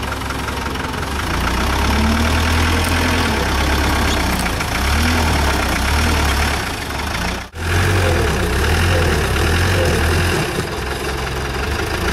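Engine of a modified off-road competition 4x4 revving in repeated bursts, rising and falling every second or so, as it works the truck up and over logs on a steep slope. The sound drops out briefly about seven and a half seconds in.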